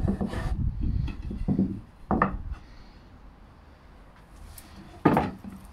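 Square softwood spindle blanks handled on a workbench: wood sliding and rubbing, and knocking against the bench and each other. There is a sharp knock about two seconds in and a louder one near the end.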